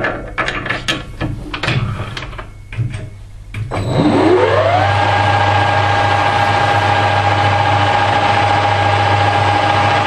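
A few clicks and knocks, then the Harrison L5 lathe starts a little over a third of the way in: its whine rises in pitch for about a second and settles into a steady running whine over a low hum.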